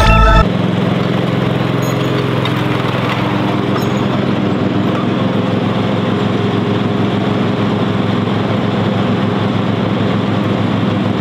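Exmark stand-on commercial mower's engine running steadily, without revving.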